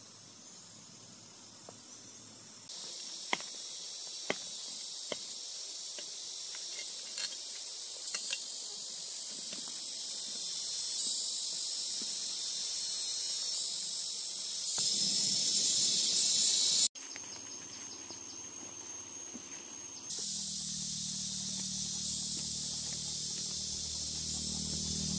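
Steady high-pitched hiss with a few faint clicks, jumping abruptly louder or softer several times; a low hum comes in near the end.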